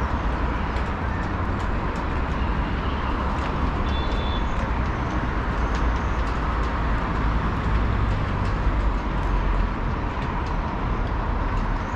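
Wind buffeting the microphone: a steady rumbling rush of noise, with a brief high tone about four seconds in.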